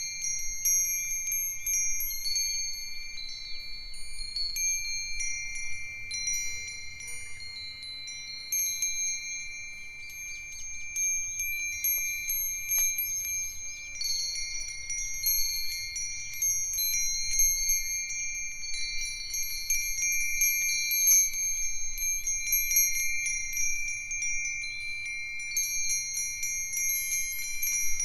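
Several Japanese metal wind chimes, among them Myochin iron fire-chopstick (hibashi) chimes and Nambu cast-iron bells, ringing together in the breeze. Irregular strikes keep clear, high tones sounding for seconds at a time.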